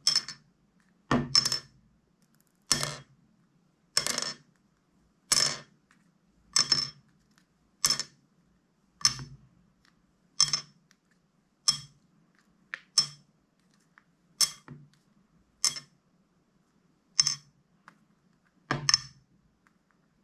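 Slime being pressed and kneaded by hand, a short, sharp squish about every second and a quarter, sometimes two in quick succession.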